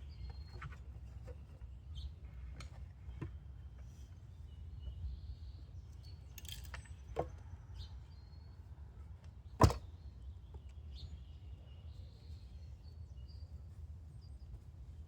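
Scattered light clicks and knocks, with one sharp, much louder knock about ten seconds in, over a steady low rumble; faint bird chirps come through now and then.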